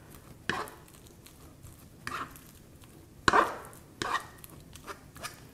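A metal fork mashing a soft, ripe banana on a plastic cutting board: about six irregular taps of the tines against the board, the loudest just after three seconds in.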